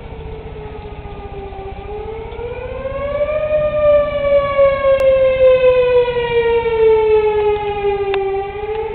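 Tornado warning siren wailing: its pitch dips, climbs for about a second and a half from about two seconds in, then sinks slowly before starting to climb again near the end, and it grows louder partway through.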